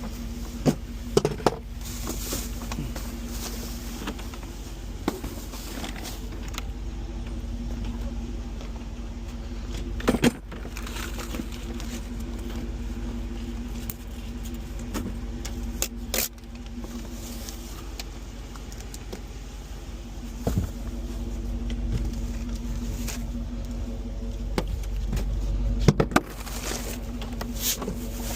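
Car running, heard from inside the cabin: a steady low hum with occasional clicks and knocks, such as keys or loose items rattling.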